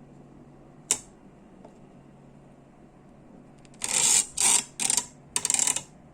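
A sharp click about a second in, then four short hissing bursts from an aerosol spray can, each under a second long.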